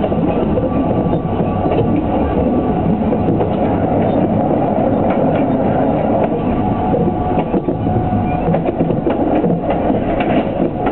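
Train running along the rails: a steady, loud rumble with short wheel clicks over the rail joints, more frequent in the second half.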